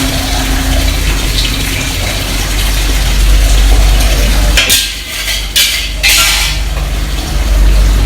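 Restaurant kitchen during cooking: a steady low rumble with pots, pans and utensils clinking. About halfway through comes a loud hiss lasting about two seconds, in a few pulses.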